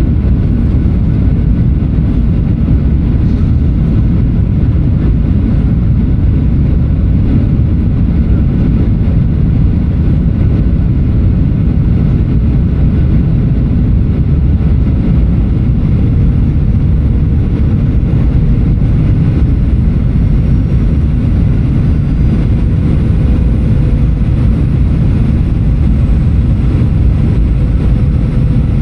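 Steady cabin noise inside a Boeing 737-800 in flight: the hum of its CFM56-7B jet engines mixed with airflow rushing past the fuselage. A faint steady tone comes in about halfway through.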